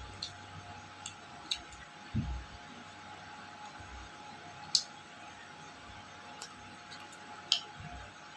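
Eating sounds: a handful of short sharp mouth clicks and soft low thumps of chewing and handling food, over a steady faint hum.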